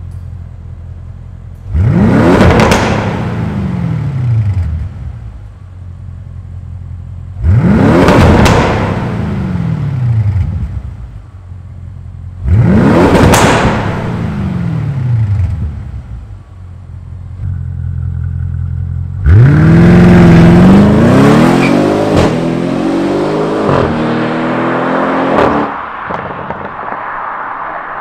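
Audi RS6's twin-turbo V8 through a valved catback exhaust with a catless downpipe, revved while parked. It idles, then gives three short, sharp blips about five seconds apart, each dropping straight back to idle. Then comes a longer rev, held and wavering for about six seconds, before it falls back to idle.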